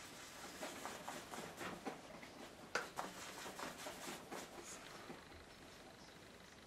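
A painting tool dabbing and scrubbing acrylic paint onto the picture: soft, irregular taps and scratchy strokes, the sharpest one nearly three seconds in.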